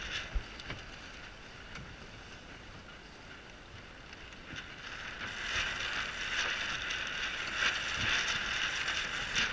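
Aboard a Lightning sailboat: a steady rush of wind and water noise that eases off and then swells again about halfway through, with a single light knock just after the start.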